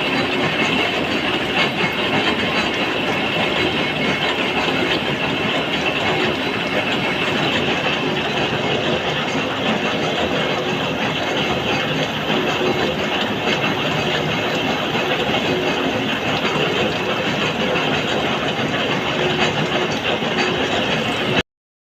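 Workshop machine tool running steadily, a loud, even mechanical noise with no pauses. It cuts out briefly near the end.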